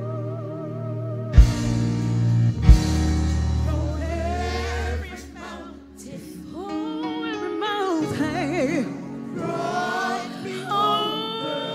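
Gospel choir singing with a live band. A held, wavering note opens, two sharp drum hits come about one and a half and three seconds in, and then the voices rise and fall in a melodic line.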